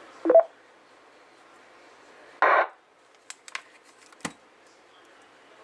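Kenwood TR-7500 2 m FM transceiver's speaker letting out a short burst of hiss, about a third of a second, cut off abruptly a couple of seconds in. This is a squelch tail: the receiver opening briefly and closing again, its squelch working. A short blip comes near the start, and a few sharp clicks from handling the hand microphone follow, over a faint steady hiss.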